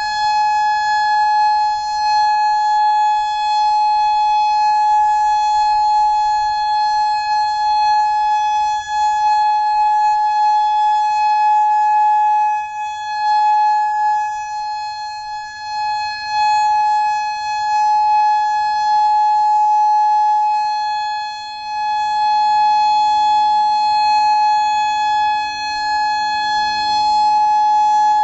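Federal Signal Modulator 6024 electronic outdoor warning siren sounding a steady tone: one loud, unwavering high pitch with a few brief dips in level.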